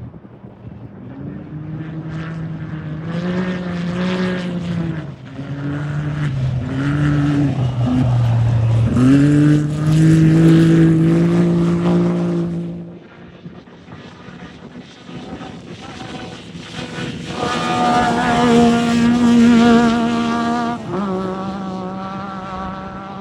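Off-road race vehicles passing one after another, engines revving. The first rises and dips in pitch for about twelve seconds. A second, higher-pitched one comes through later and drops in pitch as it goes by.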